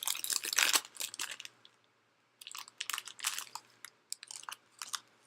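Packaging crinkling and crunching in short, crackly bursts as a vinyl figure is unwrapped. The bursts come in three clusters with brief quiet gaps between them.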